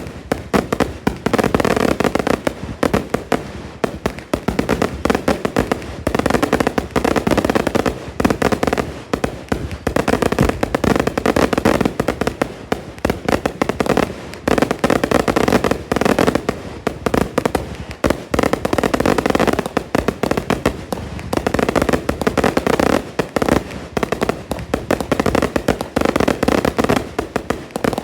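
Fireworks going off in a dense, continuous barrage: rapid overlapping bangs and crackling, with no pause.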